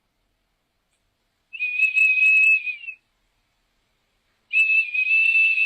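Two long, steady high-pitched whistles, each lasting about a second and a half with a slight glide at the start and end, a second and a half apart.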